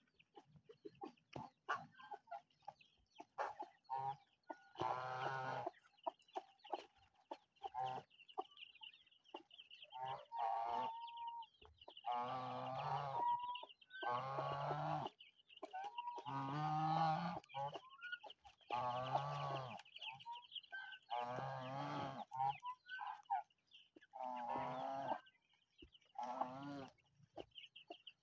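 Village chickens and white domestic geese calling: chickens clucking, with a run of loud, drawn-out calls, each about a second long and coming every two seconds or so, over a faint steady high trill.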